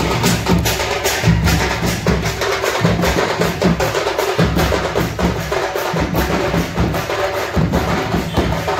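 Several large drums beaten with sticks in a fast, continuous rhythm: sharp stick strokes over deep bass thuds.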